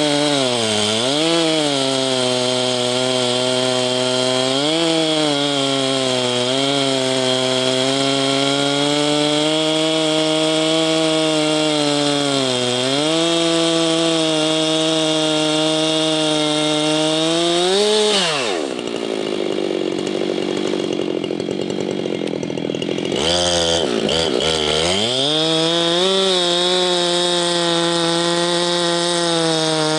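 Husqvarna 390XP two-stroke chainsaw running near full throttle while ripping slabs from a pine stump in an Alaskan mill, its pitch sagging briefly several times as it loads in the cut. About 18 s in the engine note drops away. A few seconds later it climbs back up to full speed.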